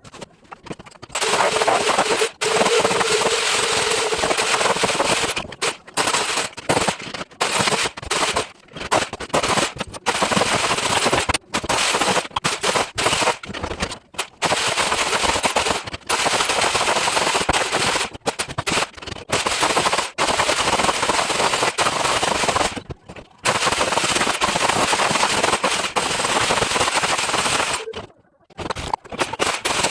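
Electric chipping hammer chiselling dried tile adhesive off a surface: rapid hammering in bursts of one to several seconds, stopping briefly between them, with a longer pause near the end.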